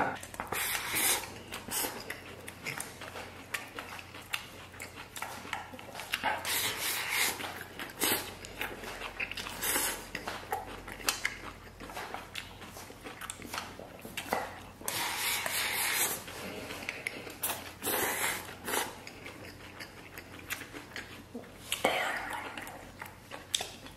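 Close-up chewing and biting of chili stir-fried octopus and rice, with wet mouth sounds, and now and then chopsticks clicking against a stainless steel bowl.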